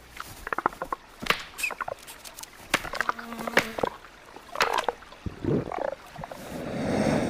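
Animal sounds over forest ambience: scattered clicks and snaps with several short chirping and croaking calls, then a breathy rumble that swells over the last second.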